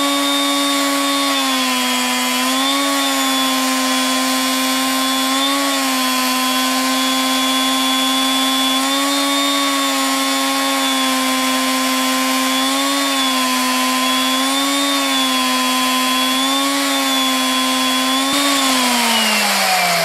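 VEVOR magnetic drill's motor running as it drills a 13/64-inch hole into the cast iron of a Bridgeport mill. Its steady hum dips briefly in pitch several times as the bit takes load. Near the end the drill is switched off and winds down with a falling pitch over about two seconds.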